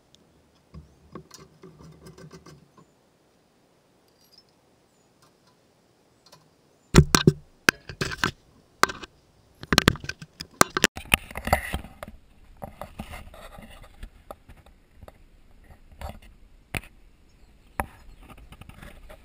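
Handling noise from hands working a metal license plate relocation bracket close to the microphone. At first there are scattered light clicks. About seven seconds in comes a cluster of sharp knocks and scraping lasting several seconds, then lighter taps and rubbing.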